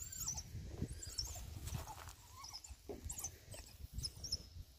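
African wild dogs scuffling and tearing at meat, with short high-pitched calls scattered throughout.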